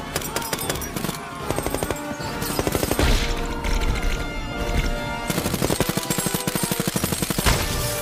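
Rapid bursts of automatic gunfire, the longest in the second half, over dramatic background music.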